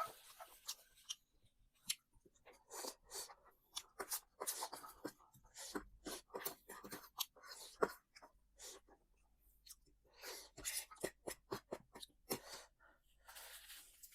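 A person chewing and crunching crispy fried chicken: many irregular crisp crunches and mouth clicks.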